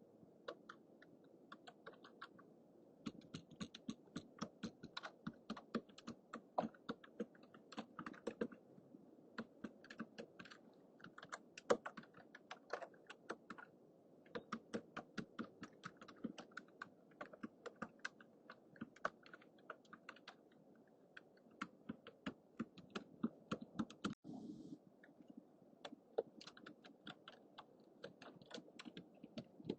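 Typing on a computer keyboard: runs of quick key clicks broken by short pauses, over a steady hiss from a low-budget microphone.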